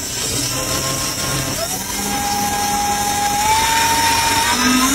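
Percussion massage gun running while pressed against an Apple Watch's screen: a steady motor buzz with a whine that steps up in pitch a few times.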